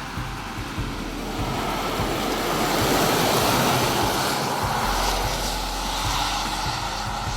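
Audi Q2 compact SUV driving by: a steady rush of tyre and wind noise that swells a couple of seconds in and eases off slightly toward the end.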